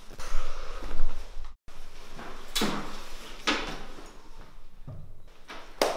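A handful of short knocks and rustles, about five in all, the loudest about a second in, with a split-second dropout to silence just after it.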